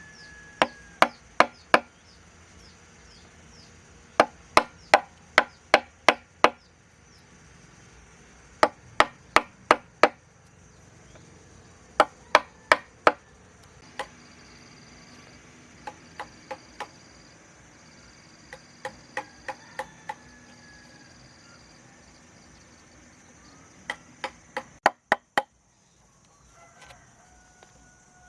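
Chopping strikes on wood, in quick bursts of four to six blows about three a second with short pauses between. A few bursts in the middle are fainter.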